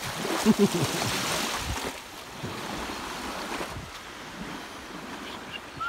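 Wind blowing across the loch shore with small waves lapping on sand and stones, and wind buffeting the microphone. The wind is louder for the first two seconds, then eases.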